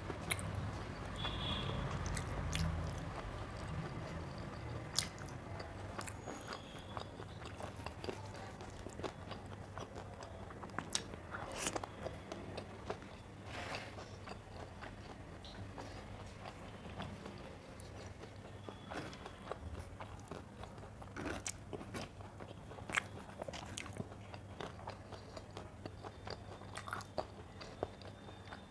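Close-up eating sounds: chewing with crunchy bites and many short sharp clicks scattered throughout.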